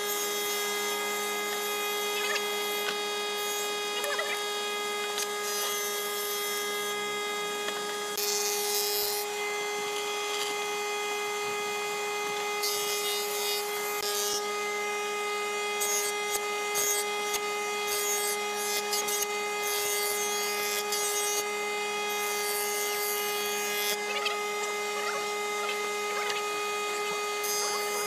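A woodworking jointer (surface planer) running with a steady motor and cutterhead hum while a hardwood board is pushed over its knives. Hissing shaving noise comes and goes in several stretches as the board is passed over the cutter.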